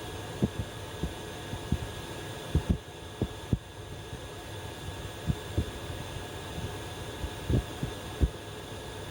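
Diesel air heater running with a steady fan hum, with about a dozen short, low thumps at uneven intervals over it.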